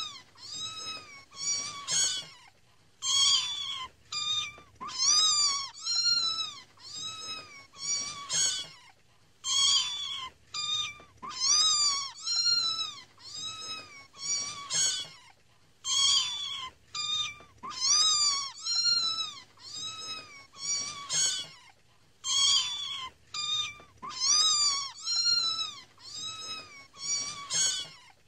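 Kittens mewing over and over: a steady string of short, high-pitched mews, each rising and then falling in pitch, coming about one to two a second with brief gaps between them.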